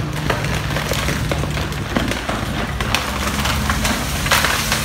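SANY tracked excavator's diesel engine running steadily while a tree it is pushing over cracks and snaps. The splintering and breaking of branches grows denser toward the end as the tree comes down.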